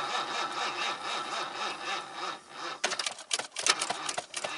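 1984 Mercury Marquis being cranked from cold: the starter turns the engine over with an even pulsing rhythm for about two seconds without it catching. Then the cranking stops and gives way to rapid clicking, several a second, as the run-down battery gives out.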